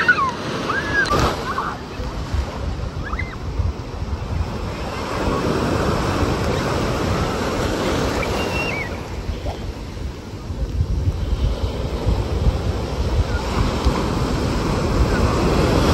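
Atlantic surf breaking and washing up the beach in a continuous rush, swelling louder about five seconds in and again near the end.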